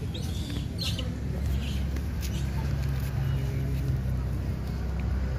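A motor vehicle's engine humming low and steady, swelling about a second and a half in and easing off near the end, with a few faint clicks.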